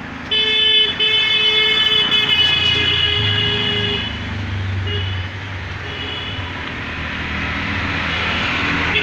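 Street traffic: a vehicle horn sounds one long blast of about three and a half seconds, with a brief break about a second in. It is followed by two short toots and another right at the end, over the low running of passing engines.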